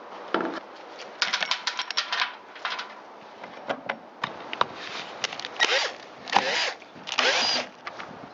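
Clicking, rattling and scraping of tools and chainsaw parts being handled as the saw is taken apart, with a quick run of clicks early on and three louder short rasping bursts in the second half.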